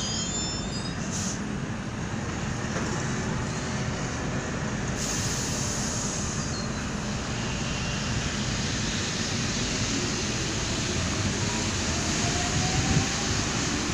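Driverless rubber-tyred Paris Métro line 1 train in the station, giving a steady low rumble.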